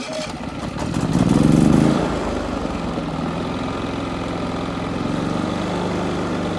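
Westinghouse iGen4500 inverter generator's single-cylinder four-stroke gas engine just started on the push-button electric start: it surges and grows louder for about two seconds, then settles into steady running.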